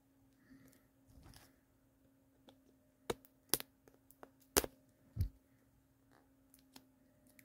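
Hands handling small toy packaging: a few sharp clicks and taps between about three and five seconds in, then a soft low thump, over a faint steady hum.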